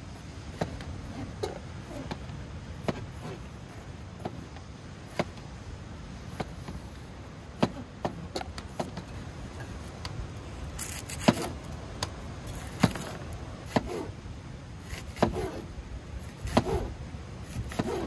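Large wide-bladed cleaver chopping potato and onion on a plastic cutting board: sharp, irregular knocks of the blade striking the board, coming more often in the second half, over a steady low background rumble.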